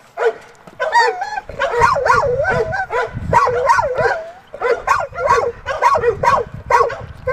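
A dog whining and yelping over and over, in short high cries that waver in pitch, about two a second.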